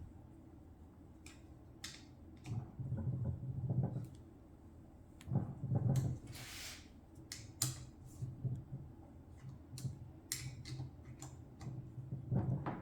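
Scattered clicks, clinks and knocks of small metal parts and the tool's body being handled, as the abrasive wheel is fitted and tightened onto a handheld surface conditioning tool. A few brief bursts of low rubbing and handling noise come in between.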